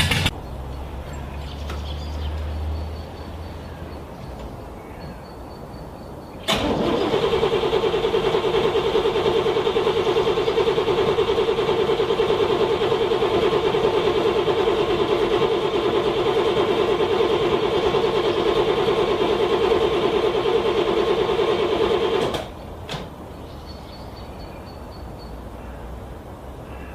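A car's starter cranking the cold engine in one long, steady attempt of about sixteen seconds, starting suddenly about six seconds in and cutting off abruptly without the engine catching. Just before, a faint low hum follows an earlier crank that stops right at the start.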